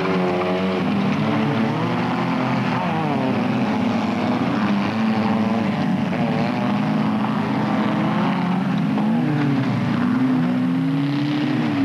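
Engines of several folkrace cars revving up and down as they race on a dirt track, more than one engine audible at once with pitches rising and falling independently.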